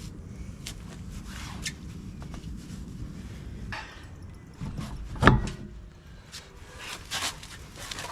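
Scattered clicks and knocks from handling parts and tools during a wheel change, over a low rumble, with one heavy thud a little over five seconds in.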